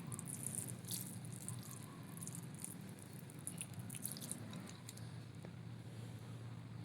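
Wet, crackly scratching and squelching of thick mud on a plastic toy figure being handled or scrubbed, a quick run of short scratches for the first four seconds or so that thins out after, over a low steady hum.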